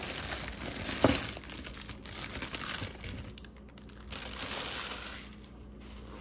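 A bag of mixed costume jewelry being dumped out: the bag rustles and the metal pieces spill and clink together, with one sharp clatter about a second in.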